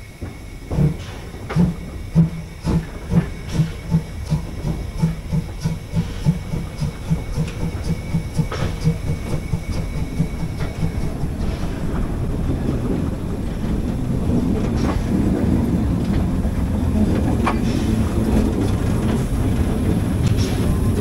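Narrow-gauge steam locomotive pulling away: its exhaust chuffs start about a second in at roughly two beats a second and quicken steadily. By about the middle they run together into a continuous rumble that grows louder as the train gathers speed.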